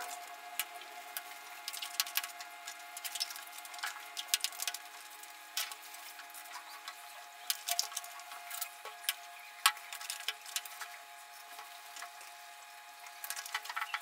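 Eating sounds: metal forks scraping and tapping in aluminium foil trays of macaroni béchamel, with wet squishy chewing noises. Short irregular clicks throughout, the sharpest one a little under ten seconds in.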